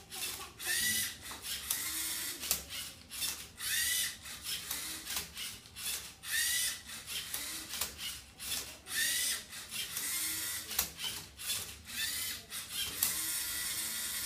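LEGO Mindstorms EV3 MindCuber robot working a Rubik's cube: its EV3 motors whine, rising and falling in pitch with each move every two to three seconds, among quick plastic clicks and clatter from the arm, turntable and cube. Near the end a longer, steadier whir runs for a couple of seconds.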